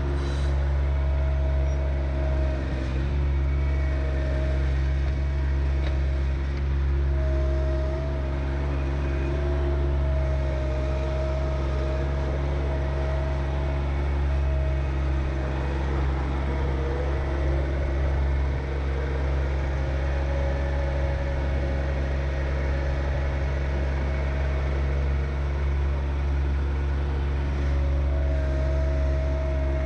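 John Deere 1025R subcompact tractor's three-cylinder diesel engine running steadily, with a whine over it that comes and goes and dips slightly in pitch for several seconds past the middle.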